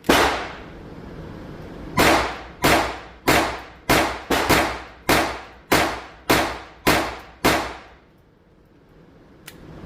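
About a dozen .22 LR pistol shots from a Polymer 80 handgun fitted with an Advantage Arms conversion slide: one shot, a pause of about two seconds, then a steady string of eleven shots roughly every 0.6 s, two of them close together midway. A couple of light clicks follow near the end.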